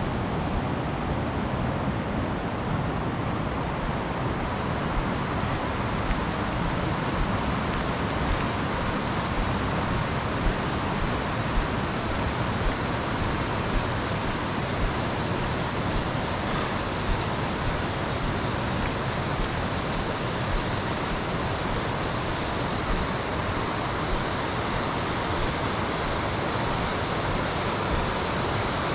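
Steady rush of a swollen mountain river running high and fast over rapids.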